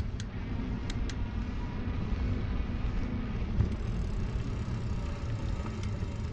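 Steady low rumble of road and traffic noise heard from a moving e-bike, with a couple of faint clicks about a second in.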